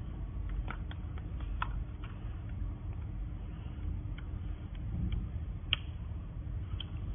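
Light plastic-and-metal clicks and ticks as a thin wire clip is worked onto the louvre of a BMW X5 E70/X6 E71 centre dashboard air vent. There is a cluster of small clicks in the first two seconds and one sharper click near the end, over a steady low rumble.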